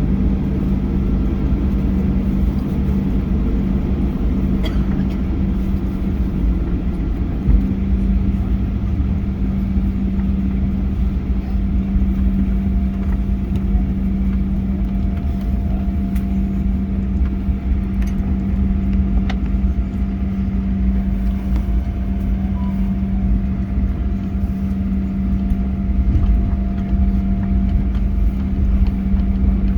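Boeing 737-800 cabin noise while taxiing: a steady hum from the idling CFM56 engines and air conditioning, with a constant low tone over a low rumble. A fainter, higher tone joins about halfway through.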